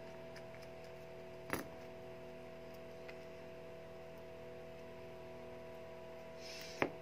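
Two small sharp clicks of hand tools against the opened smartphone's internals, one about a second and a half in and one near the end, the second just after a short rustle, over a faint steady hum.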